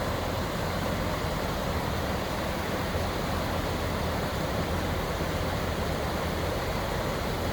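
A vehicle driving steadily: a low engine hum under a constant rushing noise, with no change in pace.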